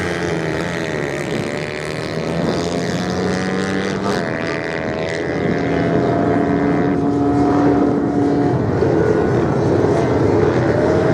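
Motorcycle engines running on a sand-racing course, their pitch rising and falling as riders open and close the throttle; for a few seconds in the middle one engine holds a steady note, then revs climb again near the end.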